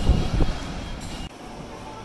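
Station platform ambience with a few low thumps on the microphone at the start, then steady electronic chime tones near the end.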